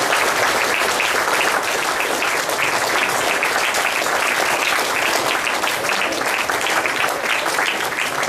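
Audience applauding, many hands clapping steadily at the close of a lecture.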